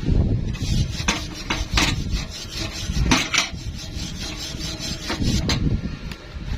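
Irregular scraping and rubbing strokes with several sharp knocks, like hand work on a metal piece.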